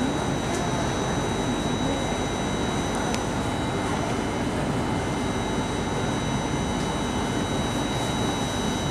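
Steady ventilation hum and rush inside an SMRT C830 metro car while the train stands at a platform, with faint high steady whines from its equipment. Two faint clicks, the first about half a second in and the second about three seconds in.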